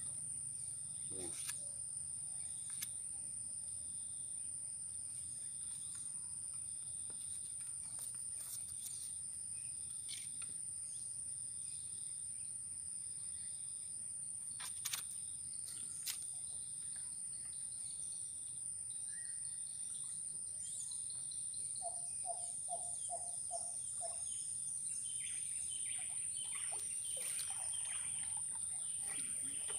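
Steady high-pitched insect drone, with scattered bird calls and a run of five even notes about two-thirds of the way in. Two sharp clicks in the middle.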